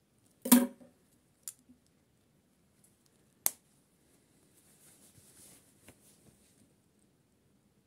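Scissors snipping through sewing thread about half a second in, followed by a couple of smaller clicks, one of them sharp. Near the end, the soft rustle of a knit glove being handled and pulled onto a hand.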